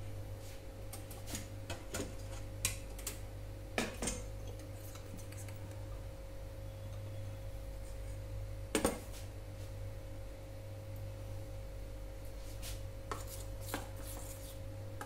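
A steady low hum in a kitchen with a kadhai of oil heating on the gas stove. Scattered light clicks and clinks of utensils being handled break through it, the loudest about nine seconds in.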